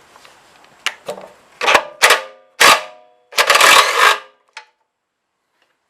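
Aerosol can of carburetor cleaner sprayed in three loud hissing bursts, the last nearly a second long, after a couple of clicks, used to dissolve sticker adhesive.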